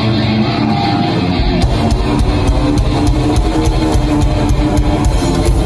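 Heavy metal band playing live through a PA: electric guitar, with drums and heavy bass coming in about a second and a half in.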